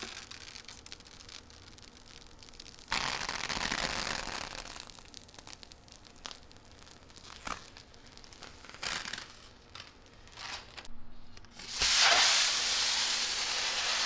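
Clear plastic protective film being peeled off a PC case's glass side panel, crinkling and tearing. It comes in two spells, a short one a few seconds in and a louder, longer one near the end.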